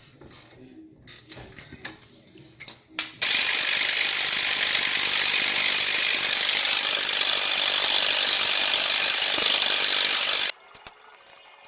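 A ratchet clicks a few times on the brake caliper bolts. Then a power tool runs steadily for about seven seconds and cuts off suddenly, driving the bolts in.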